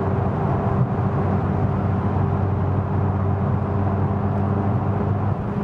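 McLaren 570GT's twin-turbocharged 3.8-litre V8 holding one steady drone at constant speed, heard inside the cabin under tyre noise from a rough road surface.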